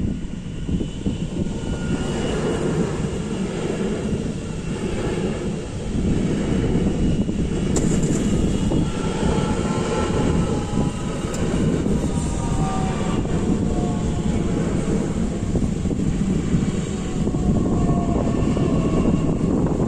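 Train passing close by: a loud, steady rumble, with a faint whine that slowly falls in pitch through the middle.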